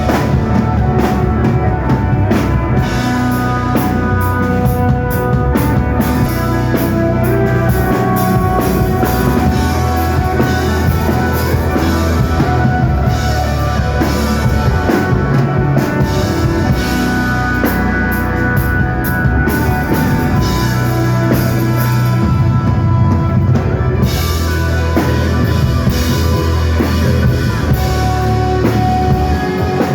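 Rock band playing live: psychedelic desert rock with a drum kit driving steadily under sustained pitched instruments, at loud level.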